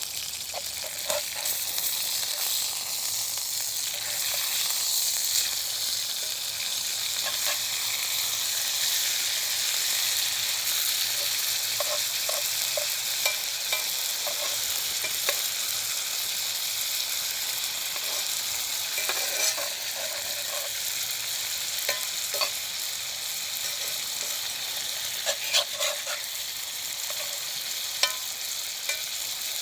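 Hamburger meat frying in a cast iron skillet over campfire coals: a steady sizzle with scattered sharp pops and crackles.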